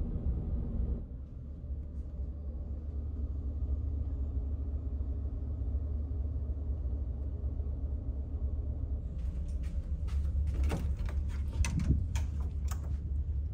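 Steady low hum of the ferry's machinery. From about nine seconds in, a run of clicks and knocks as a cabin door is opened and walked through.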